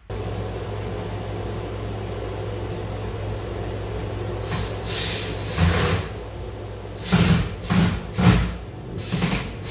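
A steady low hum throughout, with several short bursts of a cordless drill driving screws into a wall outlet box in the second half.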